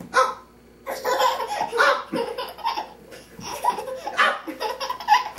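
High-pitched laughter in quick repeated bursts: a short burst at the very start, then continuous giggling from about a second in.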